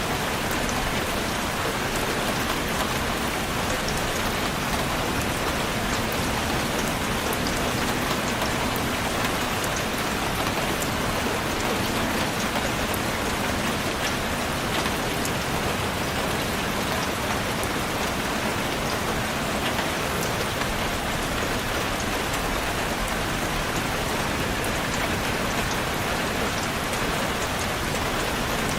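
Steady rain falling on a surface, a constant hiss with a dense patter of individual drops.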